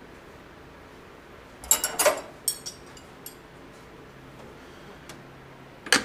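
Metal hand tools clinking and clattering: a quick run of sharp knocks about two seconds in, then a few single clicks, as a wrench is handled and set on a leaking braided fuel-line fitting. A faint steady hum lies underneath.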